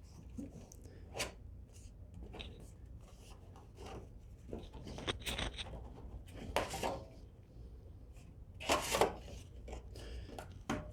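Metal step flashing being handled and bent by hand: scattered brief scrapes and rubs, the loudest two close together near the end.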